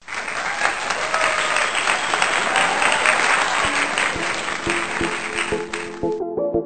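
Applause over intro music: a dense clapping noise cuts off suddenly about six seconds in, while a melody of plucked or keyboard notes comes in about halfway through and carries on.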